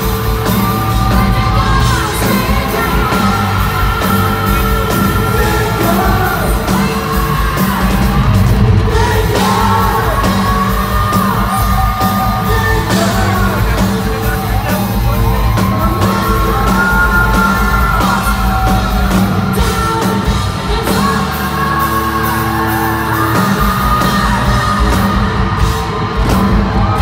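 Live hard rock band playing: distorted electric guitar, bass and drums under a male singer who sings and yells, holding long high notes, heard from among the audience.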